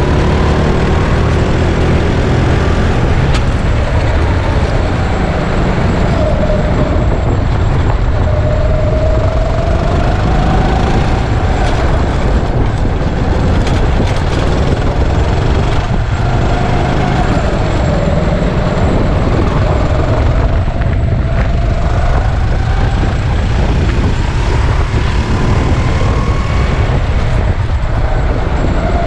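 Go-kart engine running hard on track, its pitch climbing and dropping several times as it accelerates and eases off, over a heavy low rumble.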